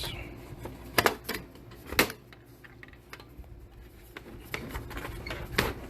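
Sharp clicks and knocks of a PC case's front panel being snapped into place by its clips, the loudest about a second and two seconds in, with another near the end.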